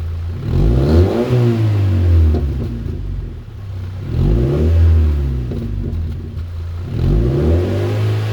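Mazda Miata NC engine revved three times, each rise in pitch falling back to idle, through its stock muffler spaced off the pipe with washers. The deliberate exhaust leak gives the exhaust a raspy sound like a leaking joint.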